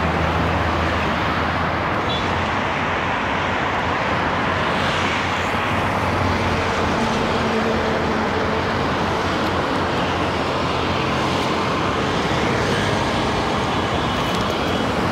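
Steady road traffic noise: the engines and tyres of passing cars and other vehicles, a constant wash of sound.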